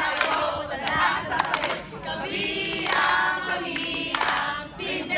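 A group of young people singing together in a crowd of overlapping voices, with a few hand claps.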